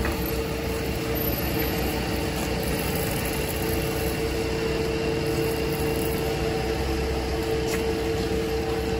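Steady mechanical hum with a constant mid-pitched tone, like a small motor or fan running, unchanged throughout.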